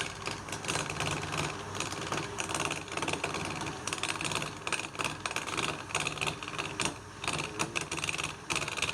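Wood lathe running with a cutting tool against the spinning workpiece: a steady, fast rattling scrape.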